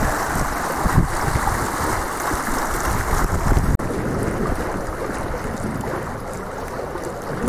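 Wind buffeting the microphone over the steady rush of water along the hull of a small trimaran sailing in a fresh breeze. The sound breaks off for an instant a little past halfway, then goes on.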